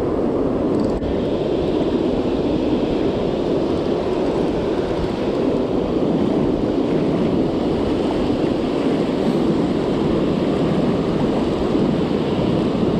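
Surf breaking and washing up the beach, mixed with wind buffeting the microphone: a steady, loud rushing noise.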